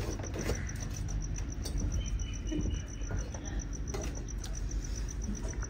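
An insect chirping in a fast, even pulse of high notes, about eight a second, over a low background rumble.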